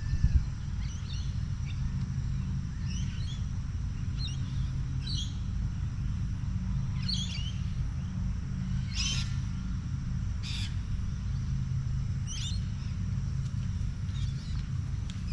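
Birds calling outdoors: short high chirps repeated every second or two over a steady low rumble.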